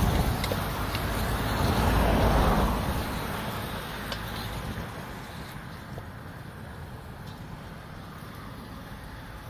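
Road traffic passing close by: a vehicle rumbles past, loudest in the first three seconds, then fades into a steady low traffic hum. A few faint clicks, a wooden spoon against an aluminium pot, sound over it.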